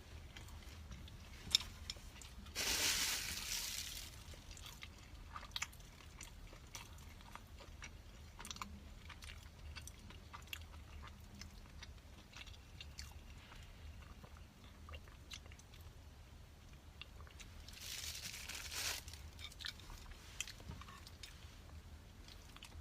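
Close-up mouth sounds of a person eating Chinese sauce-brushed flatbread (jiang xiang bing): soft chewing with many small wet clicks, and two longer, louder crunching bites, about three seconds in and again past the middle.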